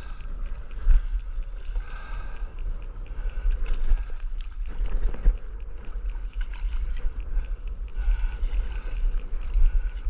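Water splashing and sloshing around a surfboard as it is paddled out across open sea, in irregular surges. Wind buffets the microphone with a low rumble throughout.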